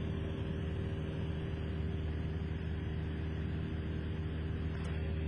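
Cessna 172SP Skyhawk's four-cylinder Lycoming piston engine and propeller droning steadily in cruise-descent, heard from the cockpit. There is a faint click near the end.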